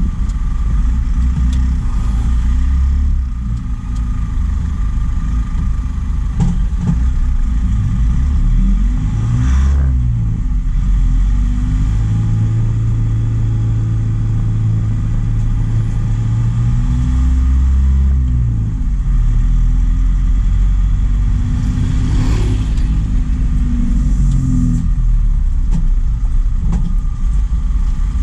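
Truck engine running on the road: a low, steady drone whose pitch shifts with the revs about ten seconds in and again past twenty seconds.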